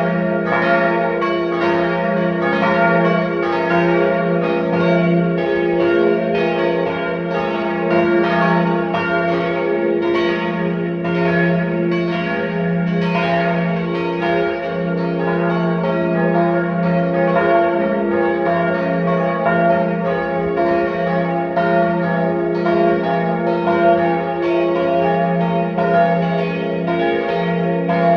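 Several church bells ringing together in a continuous peal. Their strokes overlap in a steady pattern, and each note rings on beneath the next.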